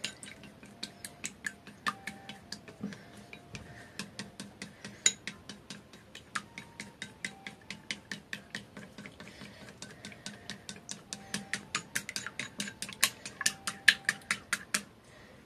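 Wooden chopsticks beating two raw eggs in a small ceramic bowl: quick clicks of the sticks against the bowl, about four or five a second, stopping just before the end.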